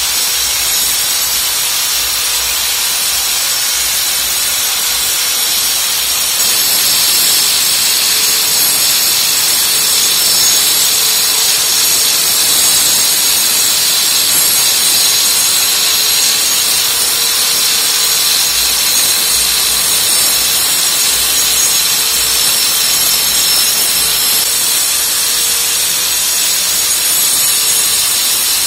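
Electric angle grinder running steadily as its cutting disc grinds into a plastered masonry wall, cutting a groove (a wall chase) for a water pipe: a continuous high whine with gritty grinding noise, a little louder from about six seconds in.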